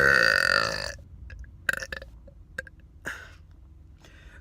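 A man's long, loud burp with a steady pitch that ends about a second in. It is followed by a few short clicks and a brief hiss.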